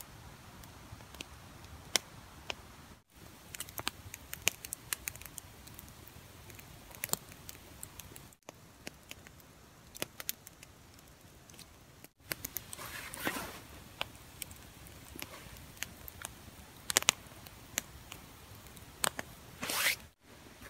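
Irregular sharp ticks and crackles over quiet outdoor ambience, with a short rustling swell about two-thirds of the way through and another just before the end.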